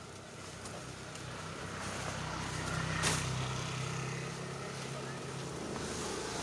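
An engine running steadily, its low hum growing louder from about two seconds in, with a sharp click about three seconds in and voices in the background.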